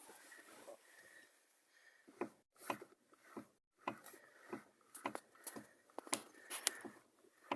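Lada Granta steering knocking as the steering wheel is turned: a series of sharp knocks, about two a second, starting about two seconds in. The cause is unknown to the owner; it persists after new tie rod ends and a new steering intermediate shaft joint and after the steering rack was adjusted.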